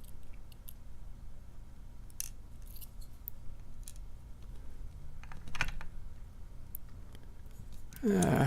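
Scattered small metallic clicks and taps of tools working tiny pins out of a brass padlock cylinder, with a slightly louder cluster of clicks about five and a half seconds in.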